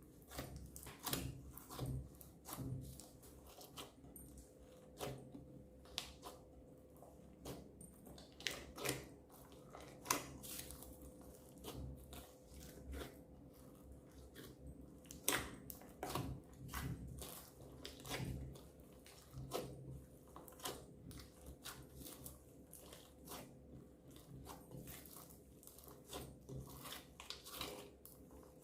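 Slime being kneaded and squeezed by hand, giving irregular wet clicks and small pops.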